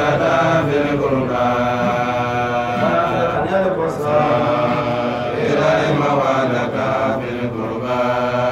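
A man's voice chanting a melodic recitation, holding long notes and gliding between pitches without a break.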